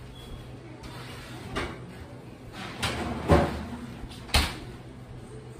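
A few doors knocking and shutting, the loudest two about three and a half and four and a half seconds in, over a low steady hum.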